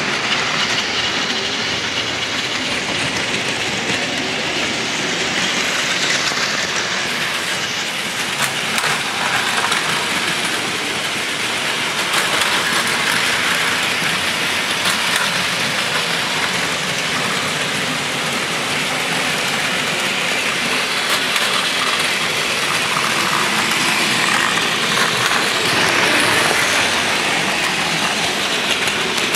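Several battery-powered Plarail toy Shinkansen trains running at once on plastic track: a steady whir of small motors with a clatter of wheels over the track joints.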